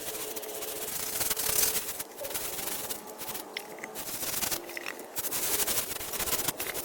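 Scraping and rubbing noise in uneven strokes with short pauses.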